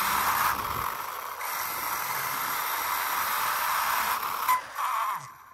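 RC car heard from a camera riding on its chassis while driving fast over asphalt: a steady rushing hiss of tyres and wind with a thin, steady motor whine. It fades out near the end.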